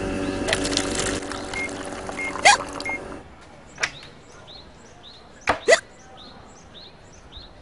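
Light background music that stops about three seconds in, then faint repeated bird chirping and a girl's sharp hiccups, the last two coming close together.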